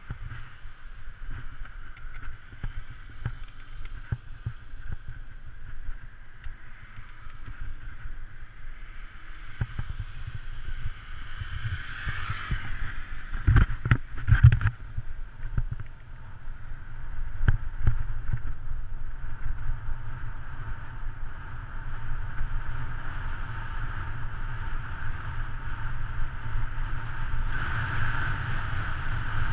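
Wind rushing over a handlebar-mounted action camera on a fast road-bike descent, with low rumble from the tyres on the road, growing louder in the second half. About twelve seconds in, a motorcycle passes close by with a brief surge and a few knocks.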